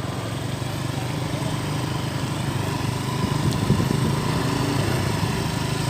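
A small engine running steadily with a low, pulsing note.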